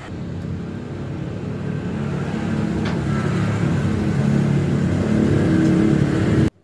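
A motor vehicle engine running, growing steadily louder, then cut off suddenly near the end.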